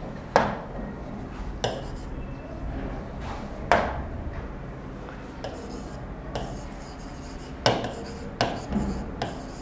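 Scattered light knocks and handling sounds, then a quick run of writing strokes on a board near the end, rubbing and tapping as a word is written.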